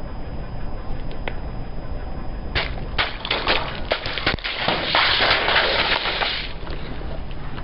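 Car tyre rolling over a row of plastic-tubed jelly sticks, over a low steady rumble. About two and a half seconds in, the tubes start bursting with a run of sharp pops and cracks. These build into a dense crackle of crushing plastic and squirting jelly that lasts about a second and a half, then stops.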